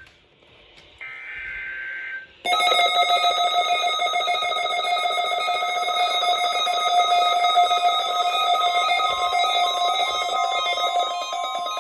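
Emergency Alert System test received off the air: a screechy burst of the digital data header, then, about two and a half seconds in, the loud steady attention tone, harsh and distorted. The tone marks the start of a required weekly or monthly test.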